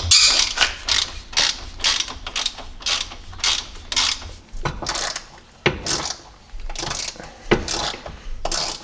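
Hand ratchet and socket clicking in a run of short strokes, a couple each second with brief pauses, as nuts on a Jeep Cherokee XJ's rear U-bolts and sway bar mounts are undone.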